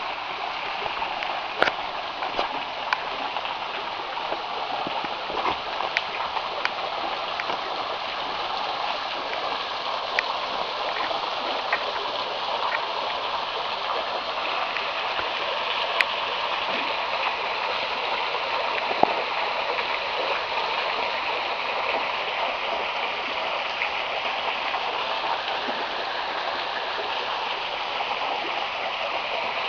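Steady rush of falling and running water at a waterfall, with a scattering of brief sharp clicks over it.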